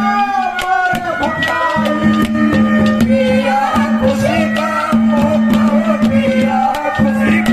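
A man singing a Haryanvi ragini through a microphone and loudspeakers, over a steady drumbeat and a held low drone note.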